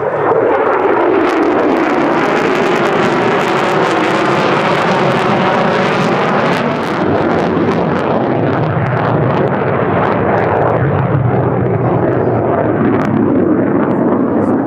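F-35A Lightning II's single Pratt & Whitney F135 turbofan, a loud, continuous jet roar with faint tones inside it that slowly slide downward in pitch.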